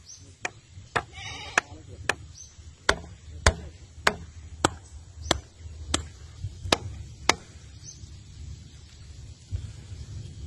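Hammer striking a wooden stake a dozen or so times, roughly two blows a second, driving it into the mud; the blows stop about three quarters of the way through.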